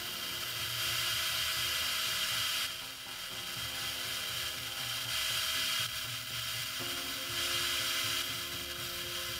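AC TIG welding arc on aluminum from an Everlast PowerTIG 210 EXT: a steady buzzing hiss that gets louder and softer in steps several times.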